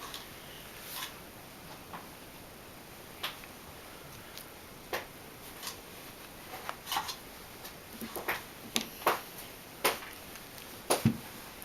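Scattered small clicks and taps of a screwdriver and tiny screws as a row of screws is taken out of a lens barrel. They are sparse at first, come closer together in the second half, and the loudest fall near the end.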